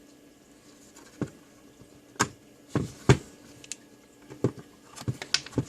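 Sharp plastic clicks and knocks from a digital multimeter's housing being worked apart by hand after its screws are out, about eight irregular clicks with the loudest near the middle.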